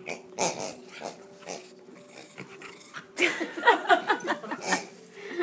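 Small white dog nosing and mouthing a rubber pig toy, making dog noises as it plays. About three seconds in comes a louder run of short pitched sounds lasting over a second.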